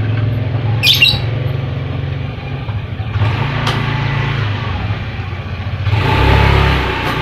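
Lovebird giving a short, high chirp about a second in, with a few faint short calls later, over a steady low hum; a broader rush of noise rises near the end.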